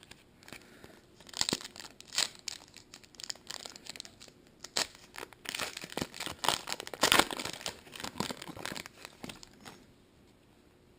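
A trading-card pack wrapper being torn open and crinkled by hand: irregular crackling and tearing that is busiest past the middle and stops near the end.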